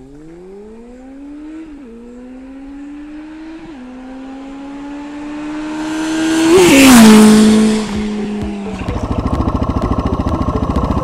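A Suzuki DR dual-sport motorcycle's single-cylinder engine accelerating up through the gears, with two upshifts, then growing loud as it passes close by, its pitch falling as it goes. Near the end a motorcycle engine chugs in rapid, even pulses at low revs.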